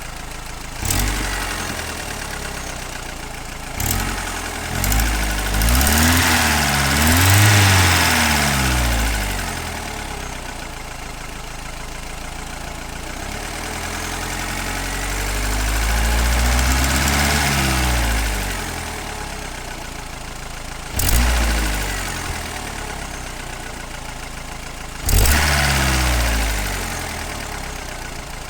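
Car engine idling and revved up several times, with an engine knock that the owner can't place between a hydraulic lash adjuster and the piston pins.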